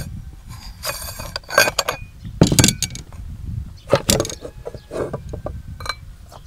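Metal parts of a meat grinder clinking, scraping and knocking as the grinder head is taken apart: the perforated cutting plate and cross-shaped knife are pulled off the auger. The knocks are irregular, with the loudest about two and a half seconds in.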